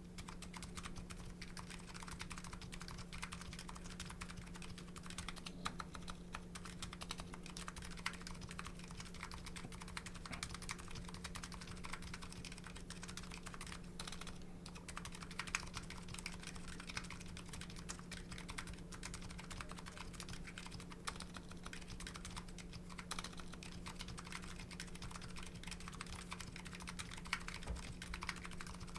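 Continuous fast typing on a Nuxros Kraze custom keyboard with MetaPulse electrocapacitive (EC) switches: a dense, even stream of keystroke clicks.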